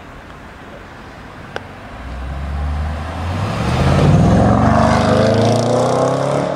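Range Rover Sport SVR's supercharged 5.0-litre V8 accelerating hard past and away, loud from about two seconds in, its note climbing in pitch with a brief dip near three seconds before climbing again.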